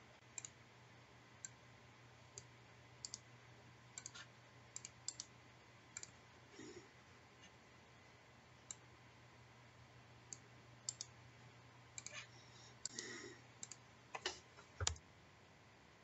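Faint, irregular keystrokes on a computer keyboard, a few at a time with pauses between, coming thicker and a little louder near the end.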